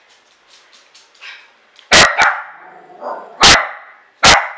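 Dog barking sharply four times, the first two in quick succession, at a wind-up toy it finds strange and scary. Faint clicks come before the first bark.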